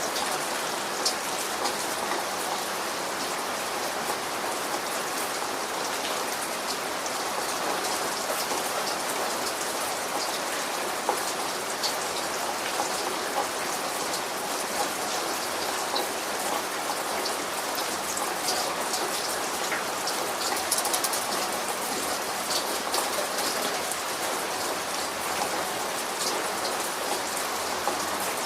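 Steady rain falling, an even hiss dotted with the sharp ticks of individual drops hitting a surface.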